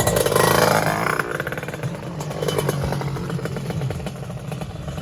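A 155 cc sport-class drag motorcycle engine revving hard, loudest in the first second, then dropping back to a lower, uneven run.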